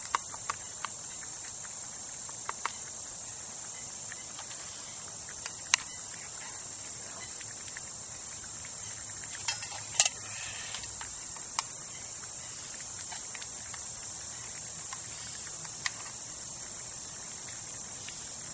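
Steady high chirring of crickets, with a few sharp clinks of utensils against metal cups and a pot, the loudest about six and ten seconds in.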